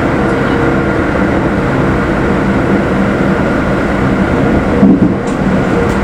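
A Keikyu New 1000 series train running at speed, heard from inside the car: a steady rumble of wheels on rail with a constant hum. About five seconds in there is a brief, louder low thump.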